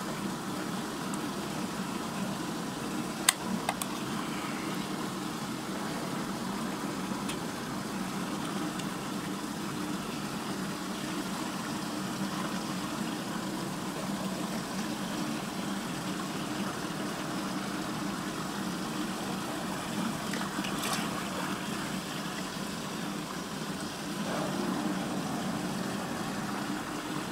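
Water swirling steadily down a whirlpool drain hole, a constant rushing with a low steady hum beneath it, broken by a few short clicks.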